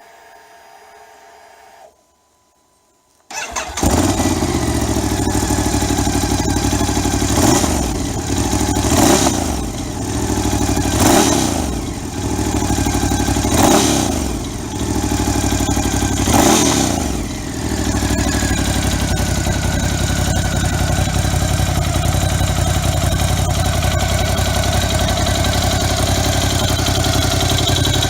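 Ducati Scrambler 1100 Sport's air-cooled L-twin is started from cold: first a faint whir for about two seconds, then a short pause before the engine catches. It revs up and falls back five times, then settles into a steady, lumpy idle.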